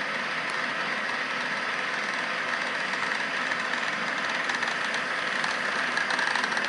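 HO scale model Norfolk Southern GP38-2 diesel locomotive running slowly along the track: a steady mechanical hum, with light clicking that builds near the end.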